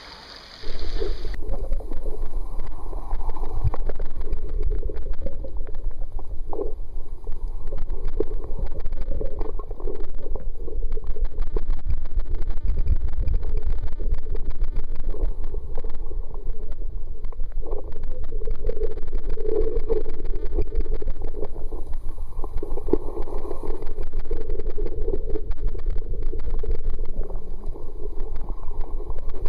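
Muffled sound from a camera held under the sea: a loud, steady rush and low rumble of water with faint crackling, starting abruptly about a second in.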